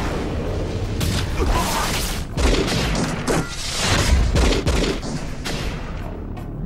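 Animated action-scene sound effects: a dense, continuous run of crashes, booms and impacts over a heavy low rumble, easing off a little near the end.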